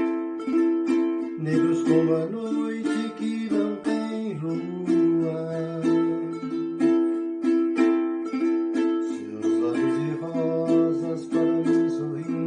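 Ukulele with a Colomba Pascal cake-tin body and a mahogany top, just short of tenor scale, strummed in a steady rhythm of several strokes a second, changing chords as it goes.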